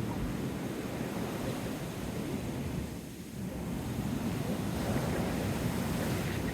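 Strong wind buffeting the microphone over the rush of surf, easing about halfway through and then swelling again.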